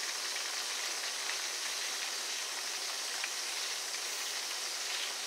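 Floured sea scallops frying in oil in a skillet: a steady, even sizzle.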